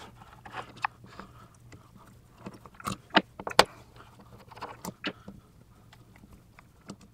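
Small metal clicks and clinks of an Allen key turning out the 3/16 Allen head bolts on an outboard intake manifold. A handful of sharp, irregular ticks are heard, the loudest a cluster about three seconds in.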